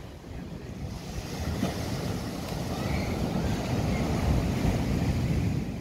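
Wind buffeting the microphone in an irregular low rumble over the wash of small waves breaking on a sandy beach, the whole growing louder over the second half.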